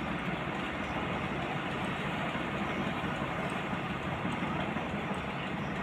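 Combine harvester running steadily, its engine and threshing machinery a dense, even drone while its unloading auger empties harvested paddy into a tractor trolley.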